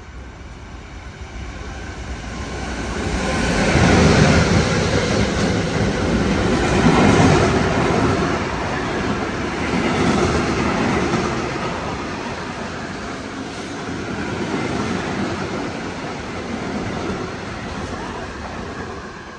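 Freight train passing through a station on the near track. The locomotive comes in and is loudest about four seconds in, then a long rake of covered freight wagons rolls past with a steady clatter of wheels on rail that eases slowly toward the end.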